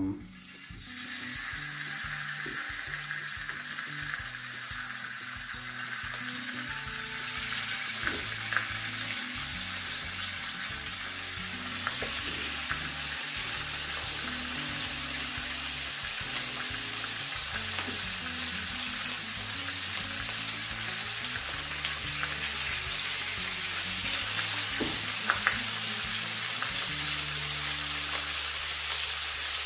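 Slices of marinated beef tongue frying in oil on a hot ridged griddle pan, a steady sizzle that starts as the first slice goes down. A few sharp clicks sound through it.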